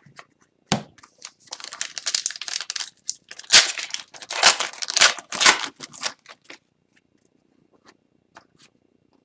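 Foil wrapper of an Upper Deck hockey card pack being torn open and crinkled, with a sharp knock just under a second in. The tearing and crinkling runs for about five seconds, then gives way to a few faint ticks.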